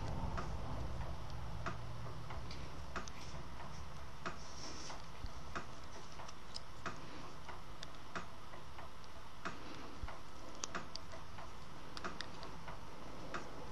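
Metal loom-knitting pick clicking against the pegs of a fine-gauge wooden round loom as stitches are worked and lifted over, a sharp light click about every second and a bit in a steady working rhythm, with fainter clicks between.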